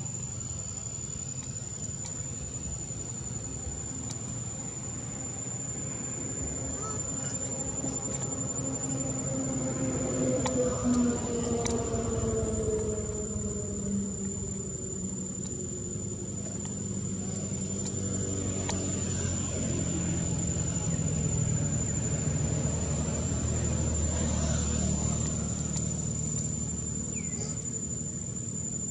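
Insects, crickets or cicadas, keeping up one steady high-pitched drone. Underneath, a lower pitched drone slowly falls in pitch through the middle.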